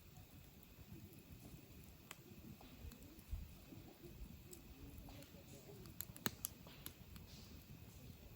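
Campfire of burning wood, faint, with scattered sharp crackles and pops, most of them in a cluster about six to seven seconds in.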